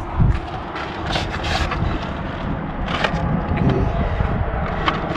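Short scrapes and clicks of a new wiper blade being handled and fitted onto a truck's wiper arm, over a steady low rumble.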